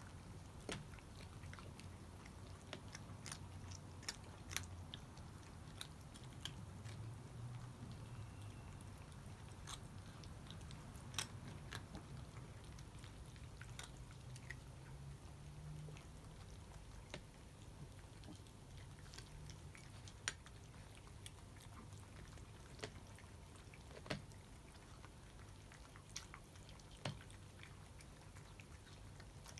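Cats eating dry kibble: faint, irregular crunches and clicks of chewing and of kibble against the bowls, over a faint low hum.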